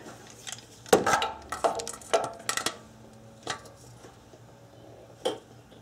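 Metal clinks and taps of a socket and breaker bar being fitted onto an exhaust header nut: several short, sharp clinks spaced out over a few seconds, the loudest about a second in.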